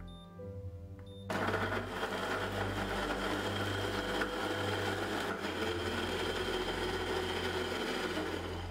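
Electric blender motor starts about a second in and runs steadily, puréeing peeled tomatoes with onions, vinegar and spices, then cuts off near the end.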